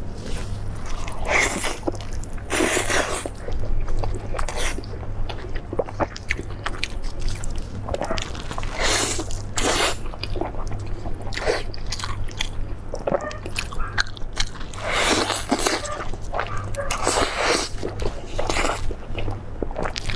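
Close-up eating sounds: bites and chewing of squirrel mandarin fish, a deep-fried sweet-and-sour fish, with crunchy noisy bites coming every second or few. A steady low hum runs underneath.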